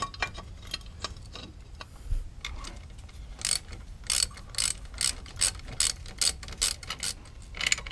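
Ratchet wrench clicking as a bolt is run in to fasten a chain cover plate, quiet at first, then a quick, even run of about three clicks a second through the second half.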